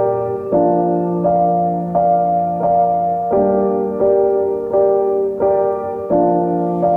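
Background piano music: slow, soft chords with notes struck at an even pace, about every two-thirds of a second.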